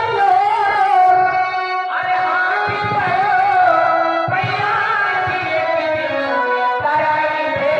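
A song sung with instrumental accompaniment: a melodic voice line over a steady rhythmic backing.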